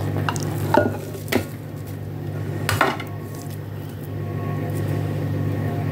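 Hands scooping wet minced meat out of a plastic food-processor bowl into a glass bowl, with a few sharp knocks and clinks of the bowls, over a steady low hum that cuts off at the end.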